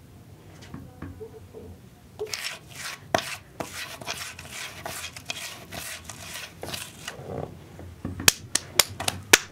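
Rhythmic back-and-forth scraping strokes of a hand workshop tool, such as a file or saw working material, about two a second. From about eight seconds in there is a run of sharp, evenly spaced taps, about four a second.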